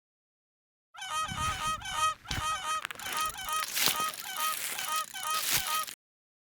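A flock of geese honking, many short overlapping honks in quick succession, starting about a second in and cutting off suddenly about a second before the end.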